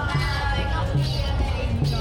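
Music with a steady, evenly repeating bass note under a held melody.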